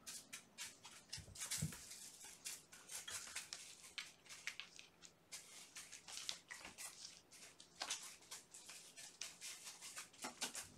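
Kittens at play: a faint, rapid, irregular run of small scratches and taps from their claws and paws, with one kitten clawing inside a cardboard scratcher, and a single soft thump a little under two seconds in.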